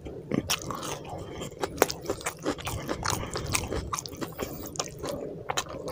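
Close-miked chewing with irregular wet smacks and clicks, along with fingers mixing rice into curry gravy on a plate.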